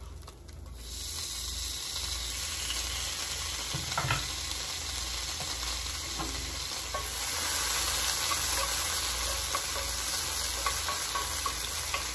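Butter sizzling as it melts in a hot skillet. The hiss starts about a second in and grows louder from about seven seconds, with a single knock about four seconds in. Near the end a wooden spatula stirs it.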